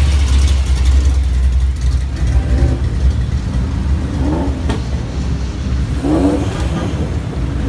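Cars driving slowly past one after another at close range, their engines and exhausts rumbling, loudest at the start and easing off, with a couple of short revs in the middle.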